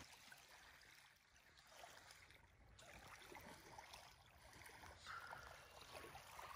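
Near silence: faint lapping of small ripples against a lake shore.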